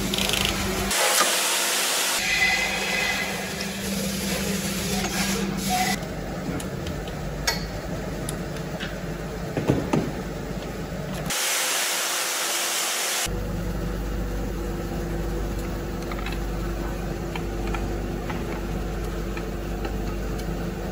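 Workshop noise while pistons are fitted into an engine block: a steady hum with a few sharp knocks, broken twice by short bursts of hiss that start and stop abruptly.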